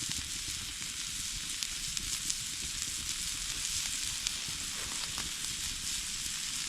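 Apple and onion frying in a pan: a steady sizzle with a few small pops.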